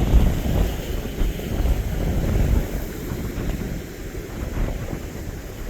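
Strong wind buffeting the microphone in gusts, heaviest for the first two and a half seconds and then easing, over the rush of the sea's surf.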